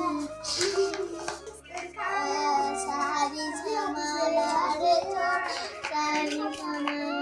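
A boy singing a song, his voice rising and falling continuously.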